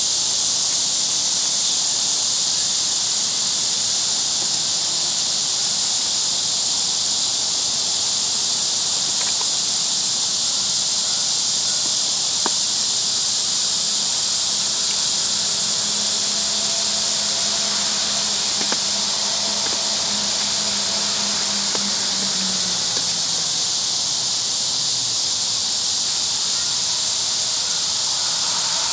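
Steady, high-pitched outdoor insect chorus buzzing without a break, with a faint low hum that sinks in pitch about two-thirds of the way through.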